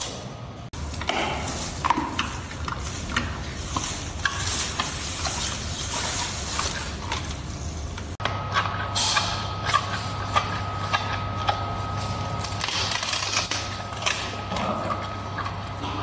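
Giant panda chewing bamboo: crisp, irregular crunching and splintering of the stalk, over a steady low hum. The sound changes abruptly about a second in and again about eight seconds in, where a thin steady tone joins the hum.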